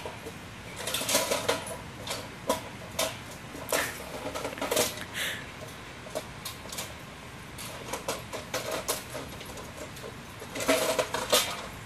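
Toy truck clattering and knocking in irregular clusters as a German shepherd bites, shoves and tosses it about. The busiest bursts come about a second in, around four to five seconds in, and near the end.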